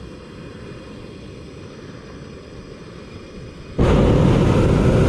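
Hot-air balloon's propane burner firing: a loud roar that cuts in suddenly near the end, after a few seconds of faint low noise.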